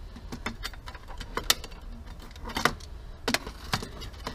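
Brake pad clicking and clinking against the metal of a motorcycle's rear brake caliper as it is fitted by hand: a string of irregular sharp metallic clicks, the loudest about a second and a half in.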